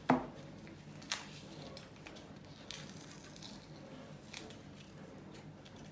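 Small sounds of table craft work: a sharp knock, a smaller one about a second later, then scattered quiet snips and rustles of scissors cutting card and masking tape being handled.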